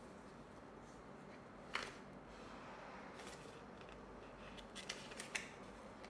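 Paper user manual being opened and its pages thumbed through: faint crisp rustles and ticks of paper, one sharper snap near two seconds in and a few more close together near the end.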